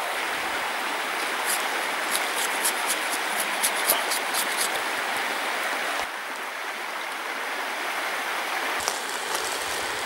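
Steady rush of flowing river water, with crisp crackles of dry grass being handled through the first half.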